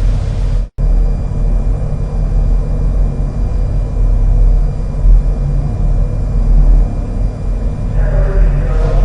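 A steady low rumble with faint, even hum tones over it. It cuts out for an instant near the start, and a faint voice comes in near the end.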